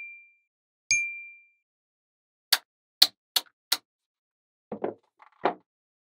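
Magnetic balls clicking as pieces of a magnet-ball model are snapped together: four sharp clicks in quick succession in the middle, then a few softer knocks near the end. About a second in, a single click is followed by a short ringing ding.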